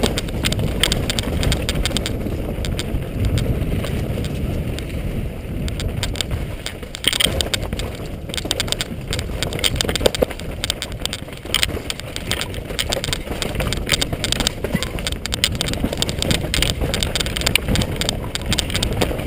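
Mountain bike descending a rough rocky trail: tyres crunching over stones and loose gravel, with frequent rattles and knocks from the bike over a steady low rumble.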